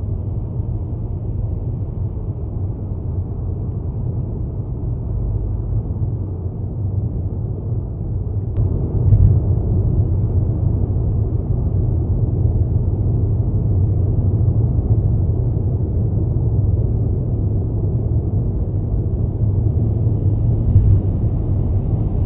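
Steady low rumble of a car driving on a city street: engine and tyre noise with no other clear events, and a brief bump about nine seconds in.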